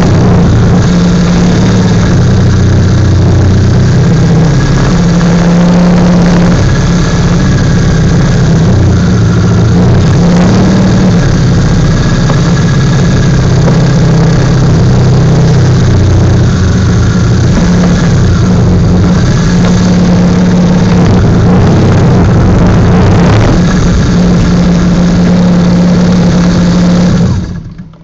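Motorcycle engine running at low speed, its pitch rising and falling as the rider opens and closes the throttle, then cutting off suddenly near the end.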